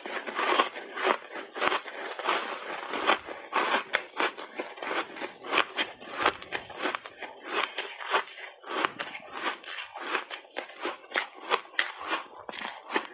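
Ice being bitten and chewed, with a dense run of crisp crunches, several a second, throughout.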